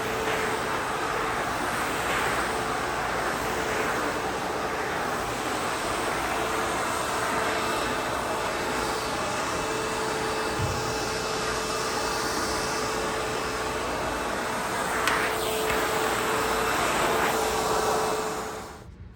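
ProTeam Super Coach backpack vacuum running steadily, its motor making a constant whine over a loud rush of airflow. The motor sound cuts off near the end.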